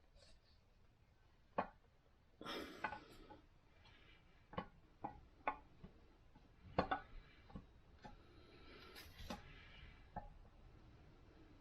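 Scattered light clicks and clinks of hand tools on the parts of a Ford 429 big-block engine being torn down, with a short scraping shuffle about two and a half seconds in and another near nine seconds.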